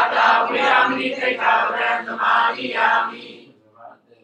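A group of people chanting together in unison, a Buddhist devotional recitation, stopping about three and a half seconds in.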